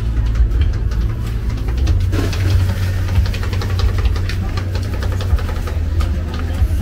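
Busy night-market ambience: a steady low rumble with background chatter and scattered clinks and clatter.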